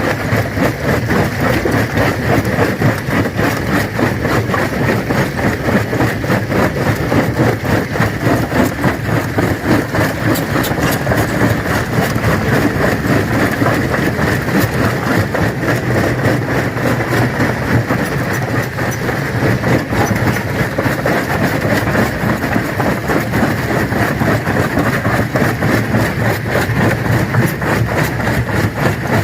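Stone crusher running and crushing rock: a loud, steady machine drone under dense, irregular clatter and knocks of stone being broken.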